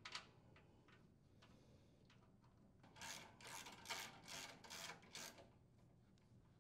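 A hand socket ratchet tightening a mounting bolt: a few faint metal clicks at the start, then about six quick ratcheting rasps, two or three a second, around the middle. The whole thing is faint.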